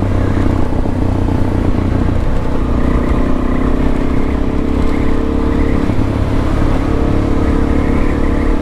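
Suzuki DRZ400S single-cylinder four-stroke engine running under way at a fairly steady speed, its pitch shifting slightly a few times, over a heavy low rumble of riding noise.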